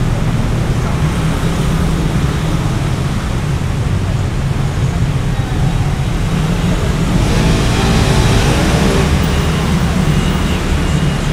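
City street traffic noise with a steady low rumble, swelling louder as something passes about seven seconds in and easing off by nine seconds.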